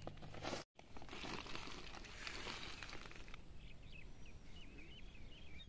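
Woven polypropylene sack rustling and crinkling as it is shaken out and spread on the ground. Small birds chirp in short, quick rising-and-falling calls through the last two seconds.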